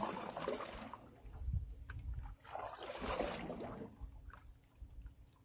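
Canoe paddle strokes in lake water: two swishing, sloshing strokes about two and a half seconds apart, with faint drips and ticks between them.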